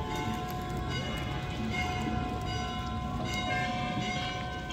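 Temple bells ringing, with several metallic tones overlapping and sustained, over a steady low rumble.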